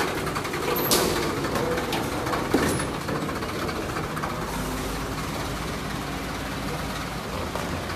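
Forklift engine running steadily while it holds a car on its forks, with two sharp metallic knocks, one about a second in and another about a second and a half later.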